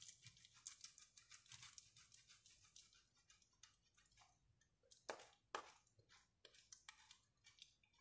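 Bar of soap scraped across a handheld metal grater: faint, irregular rasping strokes, with a couple of louder strokes about five seconds in.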